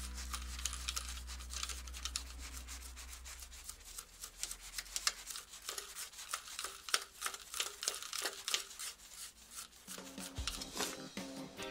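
A stiff brush scrubbing along the metal edge of a sliding entrance door: repeated short, scratchy back-and-forth strokes, cleaning out the grime that makes the door run heavily.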